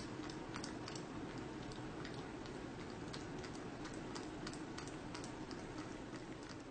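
Cat chewing a banana: faint, irregular small wet clicks from its mouth, several a second, over a steady low background hum.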